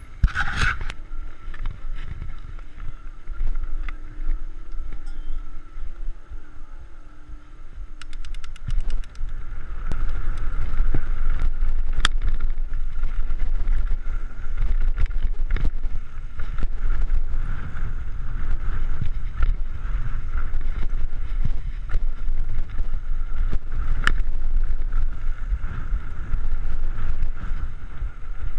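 Mountain bike descending a dirt downhill trail: wind buffeting the handlebar-mounted camera's microphone, with the rumble of knobby tyres and the rattle and knocks of the bike over bumps. It gets louder about ten seconds in as the speed picks up.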